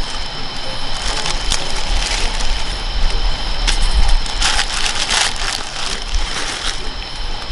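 Campfire crackling with sharp pops, over the steady rush of a portable gas stove burning under a wok. Plastic seasoning packets rustle in a short cluster about halfway through, and a steady high-pitched drone runs underneath.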